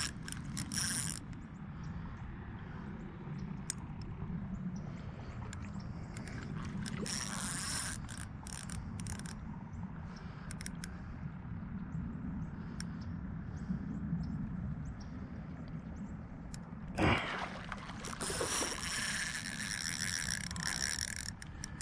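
Fishing reel being cranked while fighting a fish, its gears clicking and rattling in spurts over a low steady rumble, with a sharp knock late on.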